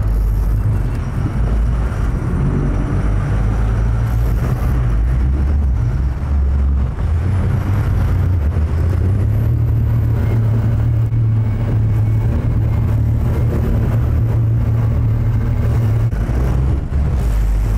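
Sportfishing boat's engine running steadily under way, a loud low rumble, with water rushing and splashing along the hull.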